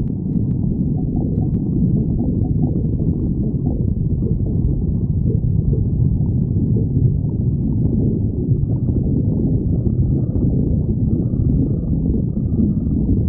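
A hungry person's stomach growling: a steady low rumble that goes on without a break.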